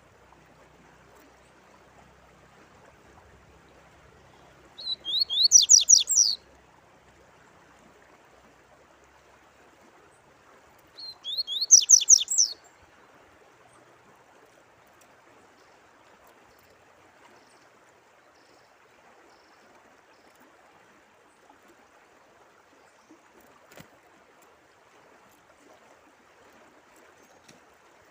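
A songbird sings one quick phrase of rapid falling whistled notes, about a second and a half long, and repeats it about six seconds later. Under it runs a steady faint sound of running water.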